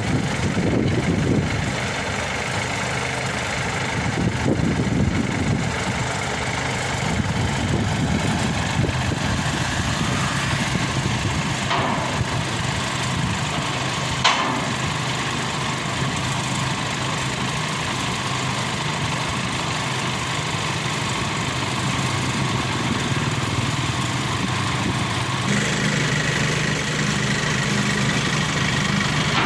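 A large engine idling steadily, with a single sharp clank of steel loading ramps about halfway through. Near the end the engine note steps up slightly.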